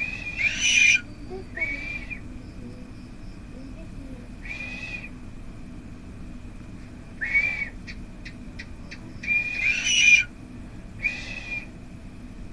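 Pet myna giving a series of short whistled calls, about six, spaced a second or more apart. There is a quick run of clicks just after the middle.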